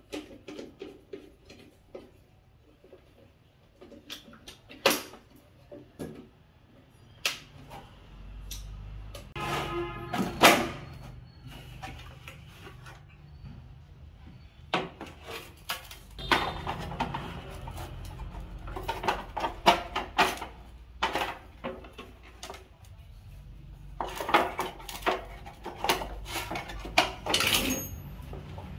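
Hard plastic parts of a pedestal electric fan being handled and fitted together by hand: scattered sharp clicks and knocks, some in quick clusters, over a low rumble.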